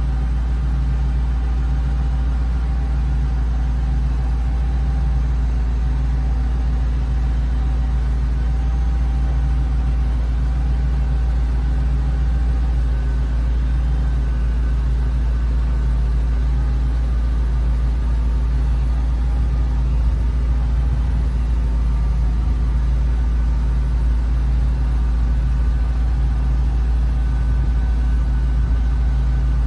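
A 1995 Ford scissor-lift dump truck's engine idling steadily while the hydraulic scissor lift lowers the dump bed.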